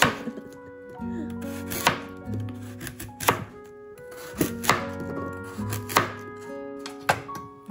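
Kitchen knife cutting vegetables on a cutting board: six sharp chops, spaced a second or so apart, over background music.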